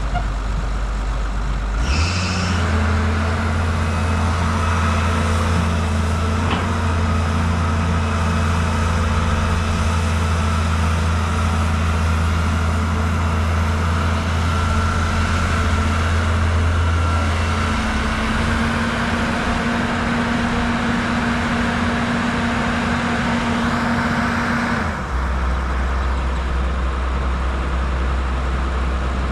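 Caterpillar 320-series excavator's diesel engine running under digging load, steady, its note stepping up about two seconds in and dropping back near the end.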